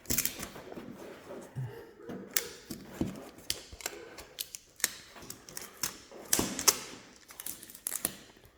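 Irregular clicks, taps and knocks of hands fitting a flat-screen TV onto its wall-mount bracket and starting the mounting screws. A sharper knock comes right at the start and a cluster of louder clicks about six and a half seconds in.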